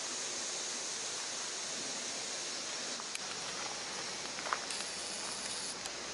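Steady outdoor background hiss, with a thin high buzz for about a second near the end and a couple of faint ticks in the middle.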